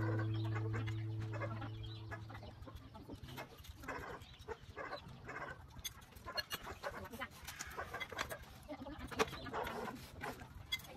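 A held low musical note fades out over the first two seconds or so. Then chickens cluck on and off.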